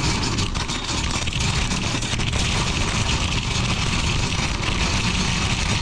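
Oak wood pellets pouring from a bag into the metal pellet hopper of a Brisk-It Origin-940 pellet grill: a steady, dense rattle of many small pellets striking the hopper's grate and walls.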